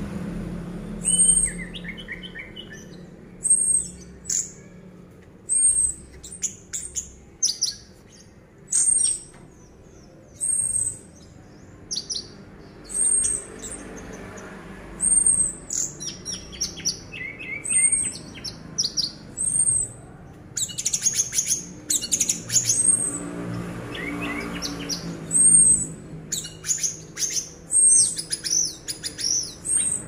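Caged orange-headed thrush singing continuously: a short high whistled note repeated every second or two, woven with quick falling notes and lower phrases, busier in the second half. This is the bird's nonstop, trance-like 'gacor teler' singing.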